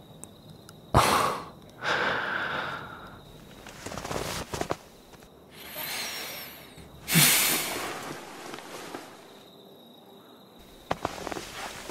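Audio-drama foley: several separate bursts of rustling and breathing, the loudest about seven seconds in.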